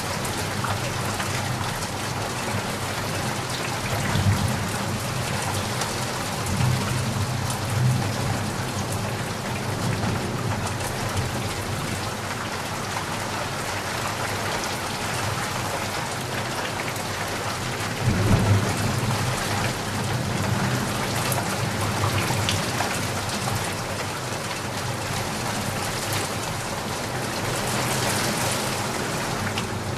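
Steady heavy rain pattering on surfaces, with low rumbles of thunder swelling in several times, the strongest about eighteen seconds in.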